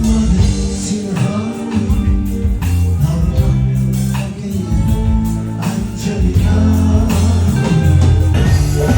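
Band music with a prominent bass line, a steady beat and singing.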